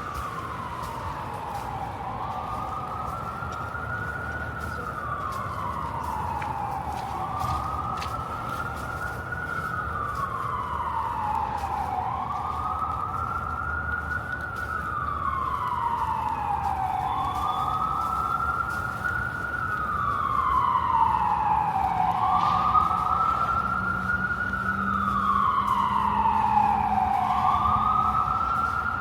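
Emergency vehicle siren in wail mode, rising and falling in pitch about every five seconds, growing louder as it approaches.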